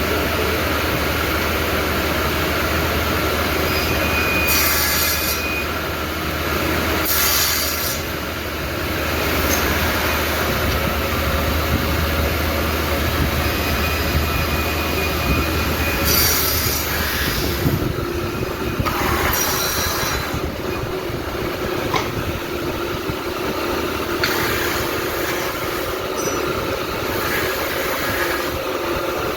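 Electric woodworking machine running with a steady hum, with short hissing bursts every few seconds as wood is cut, and a brief squeal now and then.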